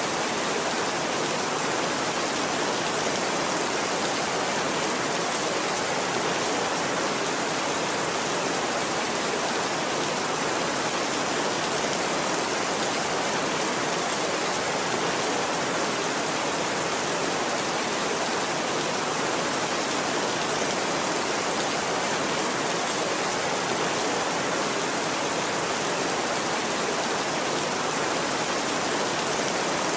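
Steady heavy rain falling: an even, unbroken wash of rain noise with no thunder claps.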